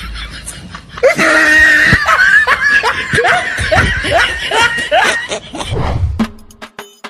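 A person laughing loudly in a string of falling "ha" pulses, about two or three a second, tailing off after about five seconds. Near the end a clicking percussion music beat starts.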